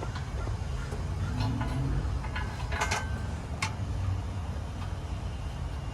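A few sharp metallic clicks and taps from handling the steel skid plate and its mounting bolts. The clearest, near the middle, rings briefly. A steady low rumble runs underneath.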